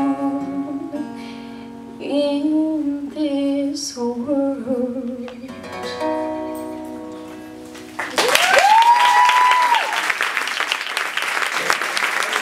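A female voice sings the last line of a slow ballad over a hollow-body electric guitar, the final notes dying away. About eight seconds in, the audience breaks into applause, with a cheer that rises in pitch and holds.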